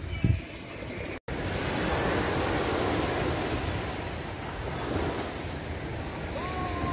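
Small Mediterranean waves breaking and washing up a sandy shore in a steady hiss of surf, with wind buffeting the microphone. There is a short thump just after the start and a brief dropout to silence about a second in.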